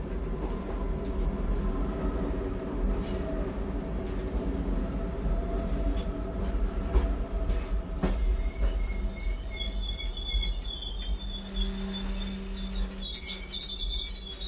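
Train running, heard from the gangway between two carriages: a heavy rumble with clattering knocks from the couplings and track. In the second half, high thin squeals come in and the rumble eases, as the train begins to slow.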